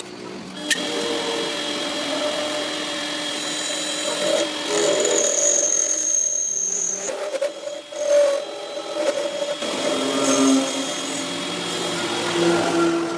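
Power tools running in a metal-repair workshop: steady whining tones that change pitch several times, with a short click near the start.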